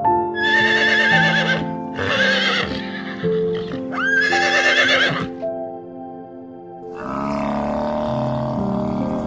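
A horse whinnying three times, each a high wavering call lasting about a second, over background music. A different, noisier animal sound starts about seven seconds in.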